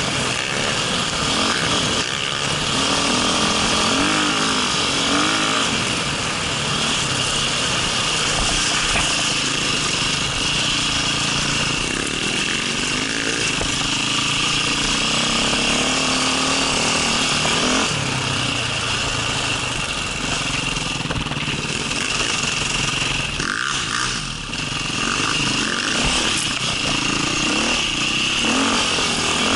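Dirt bike engine running under load, its pitch rising and falling over and over as the throttle is worked on rough ground.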